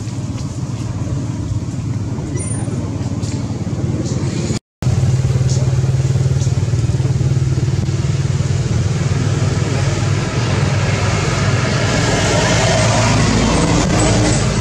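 Motor vehicle engine running with a steady low hum, cutting out for a moment about a third of the way in; a broader rushing traffic noise swells near the end as a vehicle draws closer.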